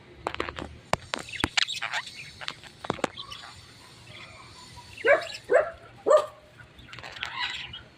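Agitated pet parrot squawking angrily, with three loud harsh calls in quick succession about five seconds in and a rougher call near the end, after some light clicks and taps.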